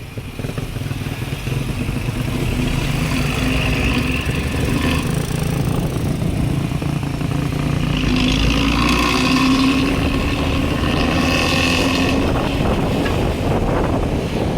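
Bus engine running through a modified growling exhaust, getting louder over the first few seconds and then holding steady.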